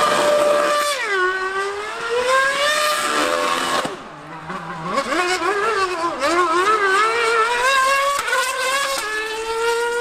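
2013 Mercedes Formula One car's 2.4-litre V8 revving hard during donuts, its pitch swinging up and down as the rear tyres spin. It dips quieter for a moment about four seconds in, then picks up again.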